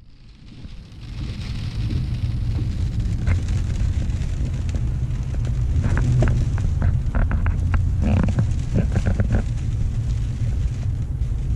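Steady low engine and road rumble heard inside a pickup truck's cab while driving slowly on wet pavement. It fades in over the first couple of seconds, and a run of sharp crackles and clicks comes a little past the middle.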